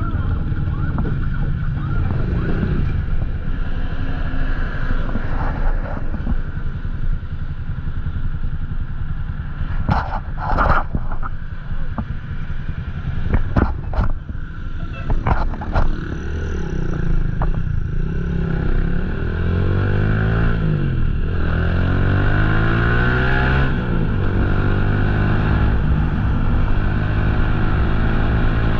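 Motorcycle engine running under way, its pitch falling and rising again with the revs in the last third. A few sharp knocks come between about ten and sixteen seconds in.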